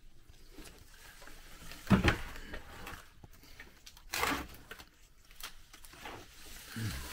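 Handling noise from plastic orchid pots on a windowsill: a pot knocks about two seconds in, then it scrapes or rustles as it is gripped and turned about four seconds in, with a smaller bump near the end.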